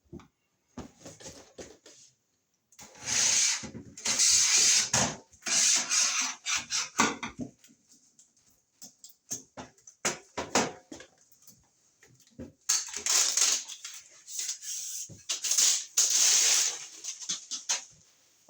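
Scraping and rubbing from hands working on a metal electrical box, in several loud bursts of a second or two, with short clicks and knocks in between.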